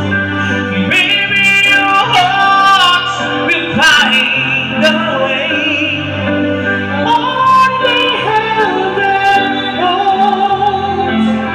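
A woman singing into a microphone over a slow ballad accompaniment with a steady bass line, her melody wavering with vibrato.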